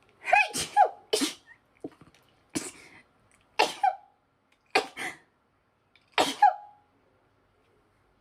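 A woman sneezing over and over in a sneezing fit: about six loud sneezes roughly a second apart, stopping about two-thirds of the way through.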